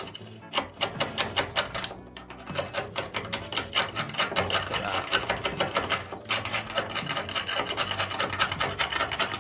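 Fast, even clattering of a small machine, in quick repeated strokes, with short breaks about two seconds in and again about six seconds in.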